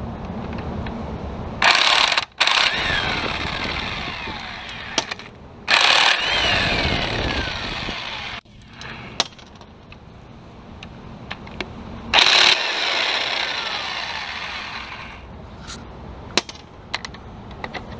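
Impact wrench hammering three times in short bursts as it spins off connecting-rod cap nuts, each burst followed by a falling whine as the tool spins down. There are a few sharp clicks in between.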